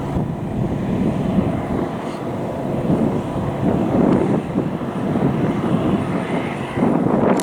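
JCB Fastrac 7270 tractor's Cummins diesel engine running steadily under load while pulling a six-furrow plough.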